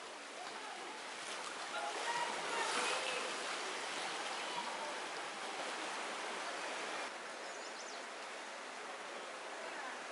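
River current rushing with the splashing of racing-canoe paddles as a canoe passes close, loudest about two to three seconds in.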